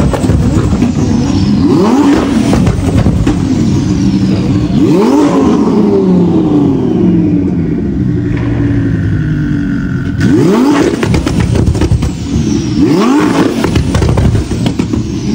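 Lamborghini Huracán's V10 revved hard several times, each rev rising and then falling away. Sharp pops and crackles come from the exhaust as it spits flames.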